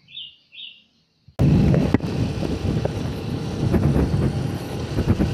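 Wind buffeting the microphone of a moving motorcycle, a loud rumbling rush that cuts in suddenly about a second and a half in, with the ride's road and engine noise underneath.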